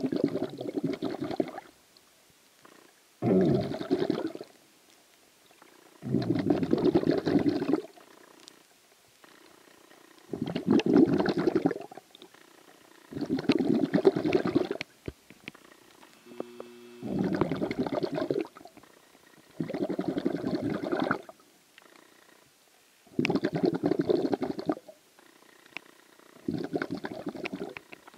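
Underwater breathing of the swimmer holding the camera: a burst of breath and bubbles about every three seconds, each lasting one to two seconds, with quiet between.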